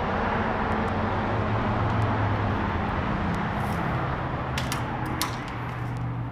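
A steady mechanical hum and rushing noise outside the building. Between about four and a half and five seconds in come a few sharp clicks of the glass office door's metal latch and handle as the door is opened.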